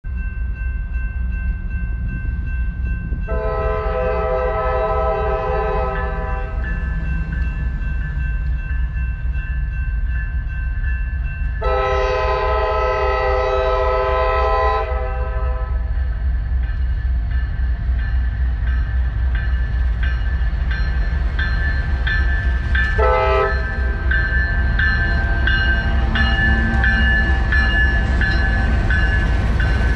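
Norfolk Southern diesel freight locomotives approaching slowly: a steady low engine rumble, with the air horn sounding two long blasts and then a short one. In the last several seconds the lead units come close, bringing a run of wheel clicks and a high steady squeal that grows louder.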